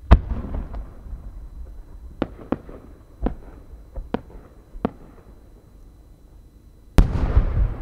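A 10-gou (about 30 cm) firework shell, a triple-pistil colour-changing chrysanthemum with rising effects: a sharp bang at the start as it is launched, then five small cracks from the rising effects as it climbs. About seven seconds in comes the deep boom of the main shell bursting, followed by a long rumbling echo.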